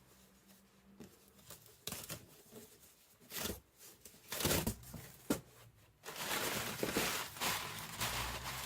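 Rustling and crinkling handling noises with scattered sharp clicks, turning into denser, louder rustling about six seconds in.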